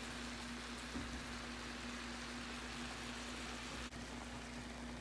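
Steady hiss of food cooking on a stovetop, with a low steady hum beneath it.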